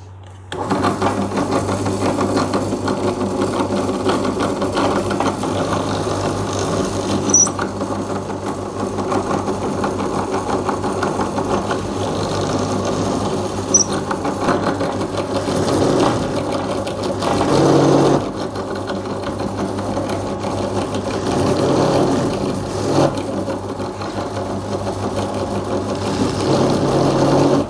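Bench drill press running with a thin bit, boring a series of small holes through a round board. The motor starts about half a second in and runs steadily, with brief louder moments as the bit cuts.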